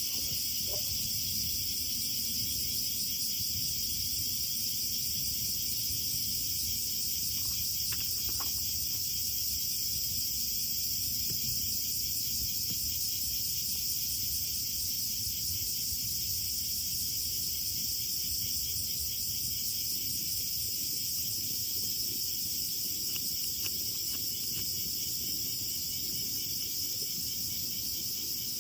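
A steady, high-pitched chorus of crickets chirring, with a few faint clicks over it.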